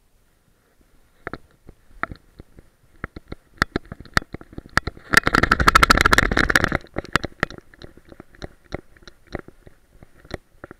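Action camera in a harness mount on a dog's back, knocking and clicking irregularly as the dog moves, with a dense burst of rapid knocking about five to seven seconds in as the dog runs.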